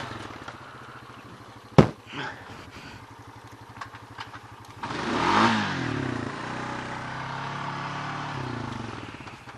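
Four-wheeler engine running low, with one sharp knock about two seconds in. About five seconds in it revs up and back, then runs steadily at a higher speed, easing off near the end.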